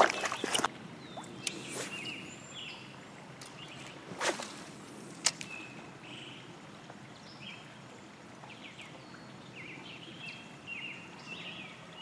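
A knock right at the start, then a fishing rod cast swishing through the air about four seconds in, followed a second later by a sharp click. Small birds chirp in short calls throughout.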